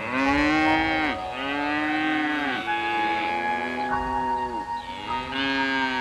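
A cow mooing in a run of long calls, each about a second long and dropping in pitch at its end, over soft background music.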